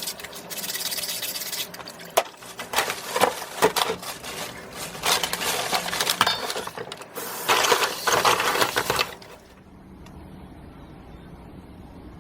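Scallops being wiped by hand: scratchy rubbing on the shells with sharp clicks and clinks of shell, stopping about nine seconds in and leaving a faint low hum.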